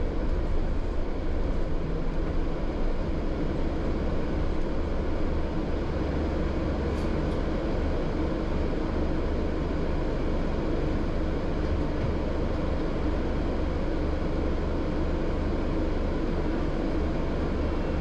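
Steady low rumble of a double-decker bus in motion: engine and road noise heard inside the cabin on the upper deck, a little louder and more uneven in the first few seconds.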